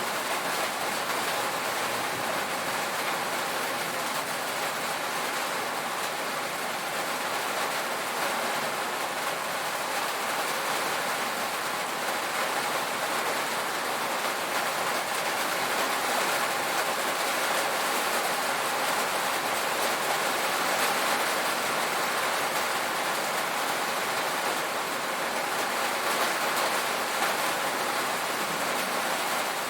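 Steady, heavy rain pattering on a tin roof, a dense even hiss without pauses.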